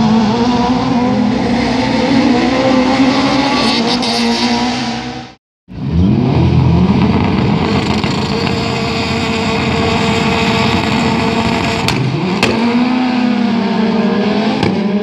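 Rallycross cars' engines racing on the circuit, revving up and down as they go through the gears. The sound cuts out for a moment about five seconds in, then an engine climbs in pitch and runs hard, with two sharp cracks about seven seconds later.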